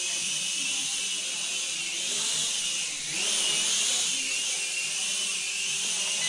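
Mini quadcopter's motors and propellers whining high and steady. About three seconds in, the whine rises in pitch and gets louder as the throttle goes up.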